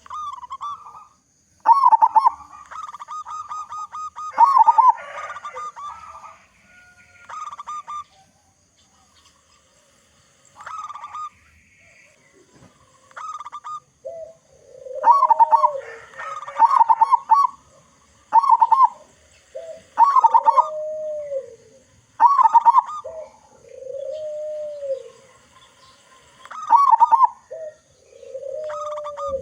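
Zebra dove (perkutut) cooing: repeated short phrases of quick, pulsed coo notes, with gaps between phrases. From about halfway, lower arched coo notes alternate with the higher pulsed ones.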